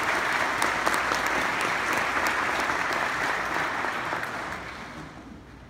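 Audience applauding steadily, with the clapping dying away over the last second or two.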